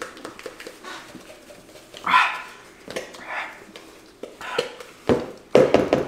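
Frozen Slurpee slush being sucked hard through drinking straws. There are two short, loud slurping bursts about two and three and a half seconds in, then a rapid rattling slurp near the end.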